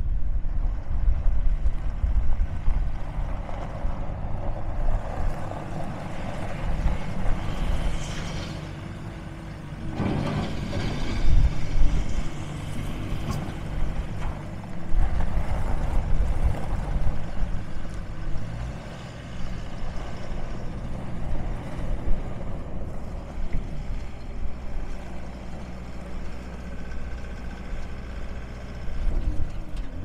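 Bobcat S740 skid-steer loader's diesel engine running under load as the machine drives and turns, its pitch rising and falling with the throttle. There is a louder stretch of broad rushing noise about ten to twelve seconds in.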